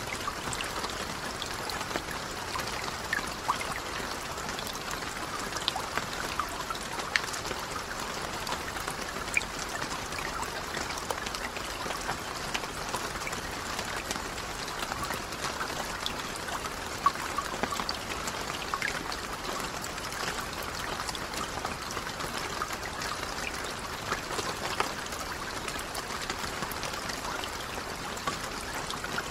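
Steady rain falling on a lake: an even hiss of rainfall with many individual drops standing out as sharp ticks.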